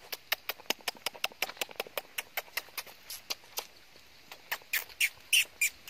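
A person clicking the tongue rapidly, about five clicks a second, to call puppies to come. After a short pause near the end come a few sharper, squeakier clicks.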